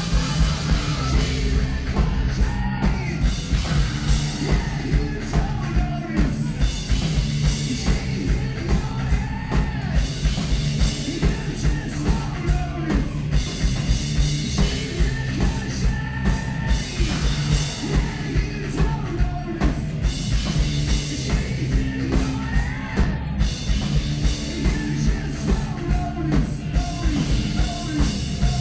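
Live rock band playing: a steady drum beat with electric guitar and keyboards under a male lead vocal.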